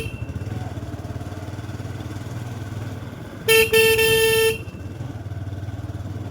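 A vehicle horn honks about three and a half seconds in, a short toot followed at once by a longer blast of about a second, over the steady low drone of a motorcycle riding along in traffic.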